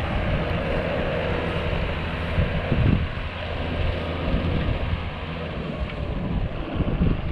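Wind buffeting the microphone over the steady drone of a John Deere 6930 tractor's diesel engine as it pulls a trailed field sprayer across the field.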